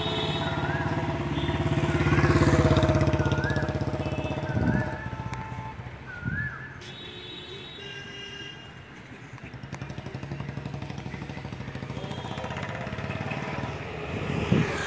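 Motorcycles and scooters passing on the road. One engine swells up and fades away in the first few seconds, and another scooter passes close near the end. A short warbling tone repeats a few times in the background early on.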